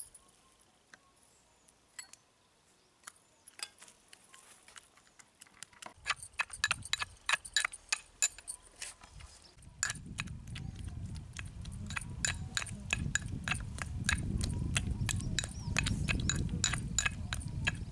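Metal pestle pounding and grinding gongura leaves in a metal mortar: quick metallic clinks begin about six seconds in, with a low rumble joining near the middle.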